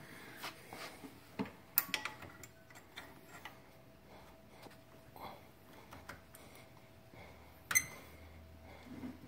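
Small metallic clicks and taps of brake caliper pad pins and clips being handled and fitted, with two sharper clinks, one about two seconds in and one near the end.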